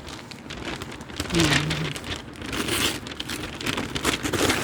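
Packaging rustling and crinkling as a gift item is unwrapped, a dense run of small crackles throughout.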